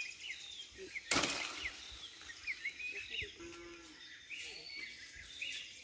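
An avocado pulled off its branch by hand with one sharp crack about a second in, over birds chirping. A cow moos briefly a little past the middle.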